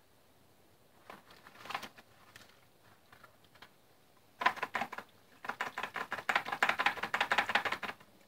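Rapid light clicking and rattling, like handled bucket gear. There are a few scattered taps at first, a short burst about four and a half seconds in, and a dense run of quick ticks over the last three seconds.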